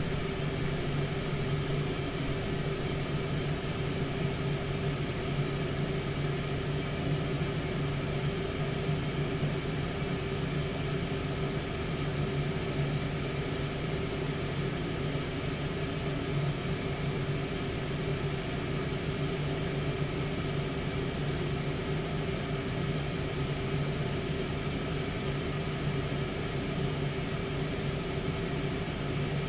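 Tower air fryer oven running, its convection fan giving a steady, unchanging hum.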